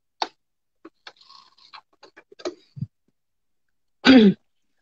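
Light scattered clicks and taps of fabric pieces and pins being handled on a cutting mat. Near the end comes a short voiced sound, falling in pitch, which is the loudest thing.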